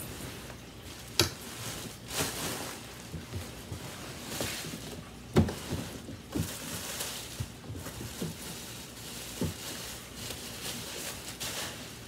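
Plastic packaging bag rustling and crinkling as it is pulled off a mini countertop dishwasher, with a few light knocks from handling the unit.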